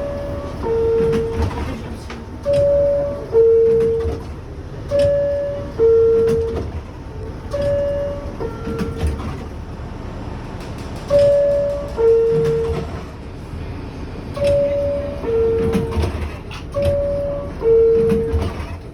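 R62A subway car door chime sounding over and over, each time a higher note falling to a longer lower one, seven times in all, over the low rumble of the train.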